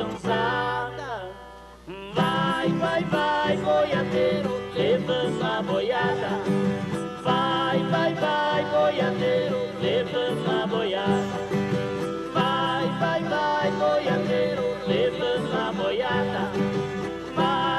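Viola caipira and guitar playing a brisk boiadeiro-style sertanejo tune, thinning out briefly with a falling slide near the start before the full strumming and picking resumes about two seconds in.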